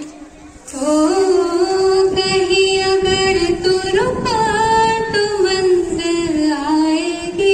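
A female voice singing a slow melody with long held notes that glide between pitches, coming in just under a second in.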